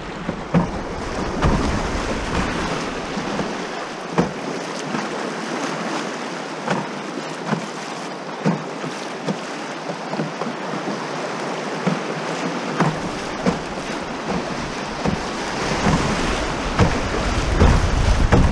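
Fast river water rushing through riffles, with frequent sharp splashes slapping against the canoe's hull. Wind buffets the microphone with a low rumble in the first few seconds and again through the last third.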